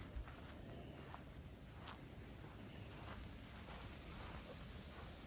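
Insects chirring in an unbroken high-pitched drone, with a faint low rumble underneath.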